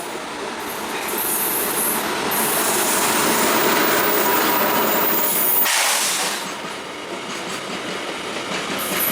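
Indian Railways train running past on the track: wheel-on-rail rumble and rattle that grows over the first two seconds and holds loud, with a high-pitched metallic edge that comes and goes, easing about six seconds in.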